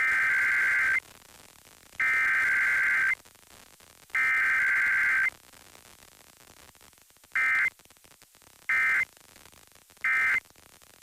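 Emergency Alert System SAME digital data bursts for a Required Weekly Test: three raspy header bursts about a second long, a second apart, then three short end-of-message bursts, with no attention tone between. Low receiver hiss fills the gaps.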